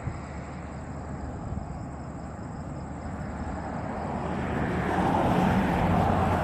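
A passing road vehicle, its noise swelling gradually from a low hum to a steady loud rush over the last few seconds.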